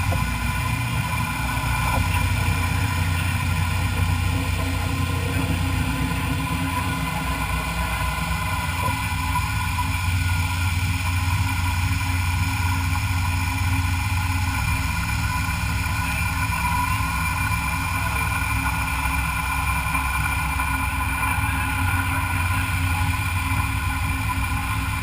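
Metalworking machine tool running steadily while machining a metal part: an even low hum with several steady tones above it.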